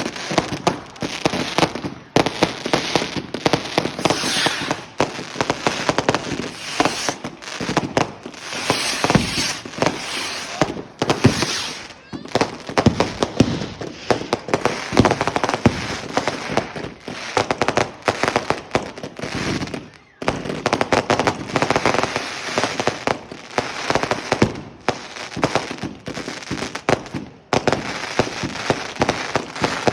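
Fireworks and firecrackers going off in a rapid, dense succession of cracks and bangs, with a brief lull about twenty seconds in.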